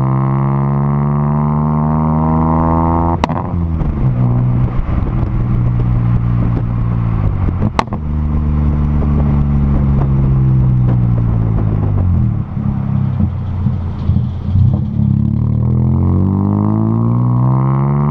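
Renault Kwid's three-cylinder engine through a full aftermarket exhaust, accelerating up through the gears: the pitch climbs and falls back at shifts about three and eight seconds in, each shift marked by a sharp crack. It then runs steadily, eases off unevenly around the twelve-second mark, and climbs again near the end.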